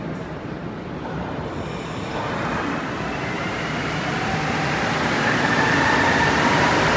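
Montreal Metro Azur train pulling out of the station on its rubber tyres. Its traction motors whine and rise in pitch, and the train gets steadily louder as it accelerates past, from about two seconds in.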